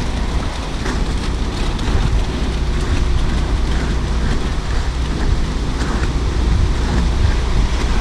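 Concrete mixer truck running with a steady deep rumble while wet concrete slides down its chute onto the slab and rakes scrape through the pile, making an even rushing noise.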